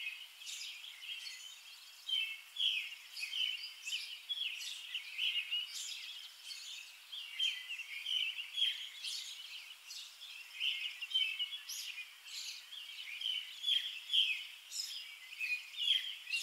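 Small birds chirping: a dense, steady run of short high chirps, with no low sounds beneath them.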